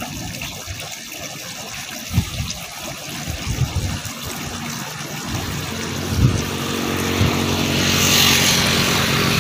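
A motor vehicle's engine hum comes up about halfway through and grows louder toward the end, over a steady background hiss with a few soft knocks.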